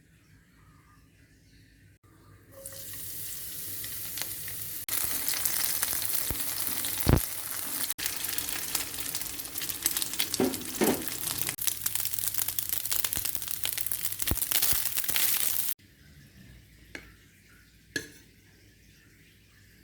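Food frying in hot oil in a pan, sizzling, with the clicks and scrapes of a spatula stirring it. The sizzle starts about two and a half seconds in, grows louder a couple of seconds later, then cuts off suddenly near the end.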